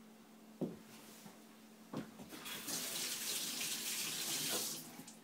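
Two light knocks, then a kitchen tap runs for about two seconds and is turned off.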